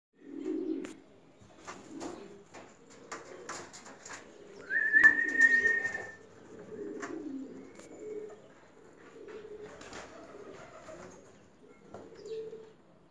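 Several domestic pigeons cooing over and over, with scattered short clicks. A single high, whistle-like tone lasting about a second, about five seconds in, is the loudest sound.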